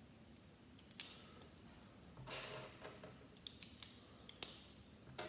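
Small plastic Lego pieces being handled and pressed onto a model car's chassis: a sharp click about a second in, a short soft noise of handling a little past two seconds, then a quick run of small clicks near the end.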